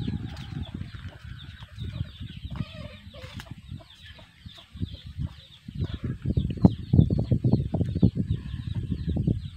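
Chickens clucking and chirping in the background over a steady stream of short high calls, with irregular low thumps and buffeting from walking and handling the camera along a dirt path, heaviest in the last few seconds.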